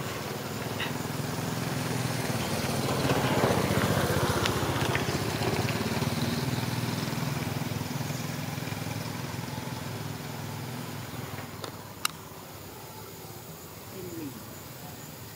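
A low engine hum that grows louder over the first few seconds and then slowly fades away. A single sharp click comes near the end.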